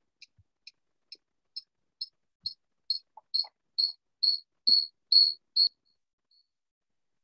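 Electronic beeping coming over a video call from an unmuted microphone: a rapid run of short high beeps, about two a second, growing steadily louder and longer like an escalating alarm, then stopping about six seconds in.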